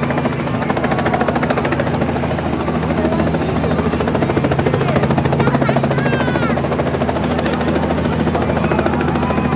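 Helicopter running: a steady low engine and rotor hum with a fast, even beat from the blades.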